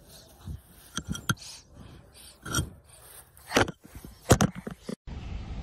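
A tortoise clambering over a phone on the ground, its shell and claws scraping and knocking against the phone right at the microphone: about half a dozen rough scrapes and knocks, the loudest near the end. It cuts off suddenly about five seconds in.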